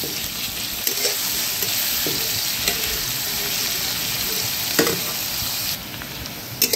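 Chopped onions sizzling in hot oil in a metal kadai, frying toward golden brown, while a plastic spatula stirs and scrapes the pan every second or two. The sizzle drops noticeably near the end.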